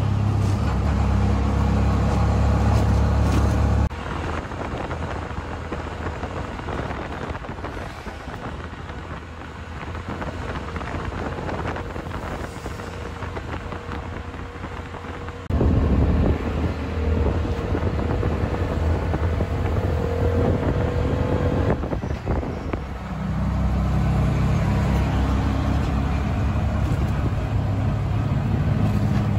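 Bajaj RE three-wheeler's engine running as it drives at speed, heard from inside the open cab with wind and road noise. The low engine rumble drops away abruptly about four seconds in, returns loud about halfway through, and dips briefly again before picking back up.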